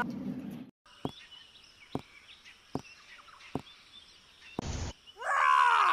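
Sound effects of a giant walking: four heavy footstep thuds about a second apart, then a loud thud and a loud growling roar that slides down in pitch near the end.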